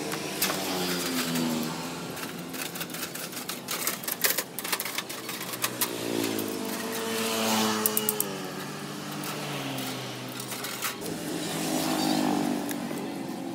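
Engines of vehicles passing on the street, their pitch rising and falling as each goes by: one at the start, another about six to ten seconds in and a third around twelve seconds in. A run of sharp clicks and taps sounds from about half a second to five seconds in, with a few more near eight seconds.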